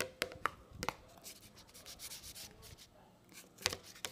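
Spoon scraping and knocking against a small pot while stirring slime that is thickening as it activates. There are a few sharp clicks near the start, scraping in the middle, and another knock near the end.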